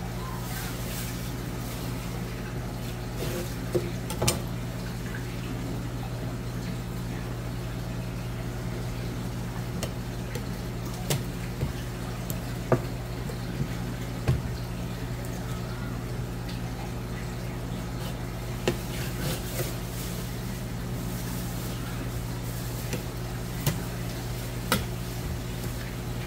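Steady low machine hum, with scattered sharp clicks and taps of a knife on a plastic cutting board as a flatfish fillet is skinned and trimmed.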